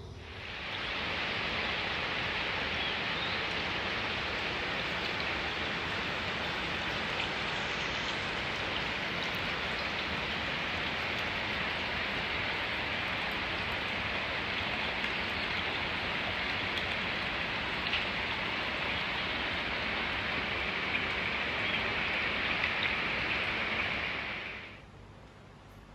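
Steady rush of falling, splashing water, fading in at the start and fading out shortly before the end.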